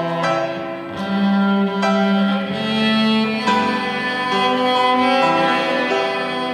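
Cello playing a slow hymn melody in long bowed notes that change about once a second, with piano accompaniment.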